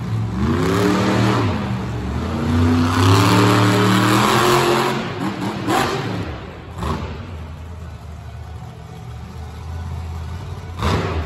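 Monster truck engine revving hard, its pitch climbing and falling for about five seconds before it eases off to a lower run. A few sharp bangs come around the middle and again near the end.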